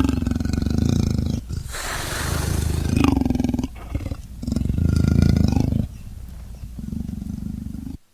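A large cat-like carnivore giving a run of long, deep growling roars, about four in a row with short breaks between them. The sound cuts off abruptly near the end.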